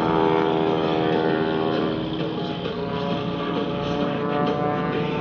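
Propeller engine of an aerobatic biplane droning overhead, its pitch sinking slightly over the first couple of seconds, mixed with music from the airshow loudspeakers.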